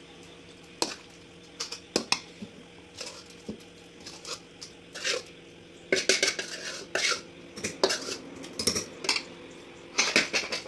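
Steel spoon scraping and clinking against a steel kadai while cooked tomato is scooped out: irregular sharp clinks, coming thicker a little past the middle and again near the end.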